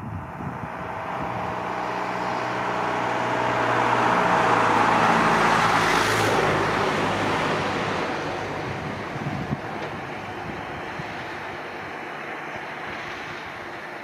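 A motor vehicle passing on the road: engine and tyre noise grow louder to a peak about five seconds in, then fade away.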